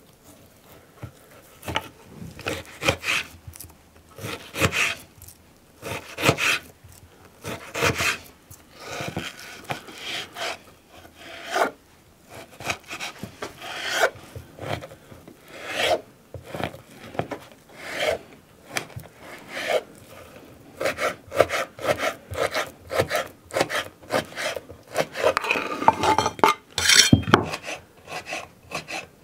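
Kitchen knife slicing and dicing pork fat on a wooden cutting board: a long run of knife strokes and scrapes against the wood, coming faster and closer together in the last third.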